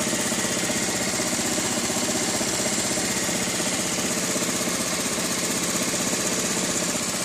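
2010 Honda Elite 110 scooter's single-cylinder four-stroke engine idling steadily, with no abnormal sounds, which the owner takes as a sign that it suffered no internal damage.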